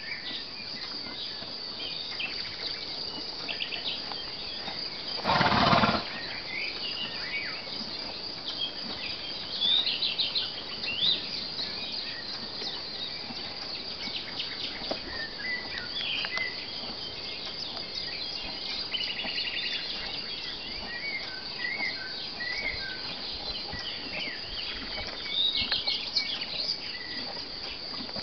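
Songbirds chirping and calling over a steady high insect drone. About five seconds in there is one brief, loud burst of noise.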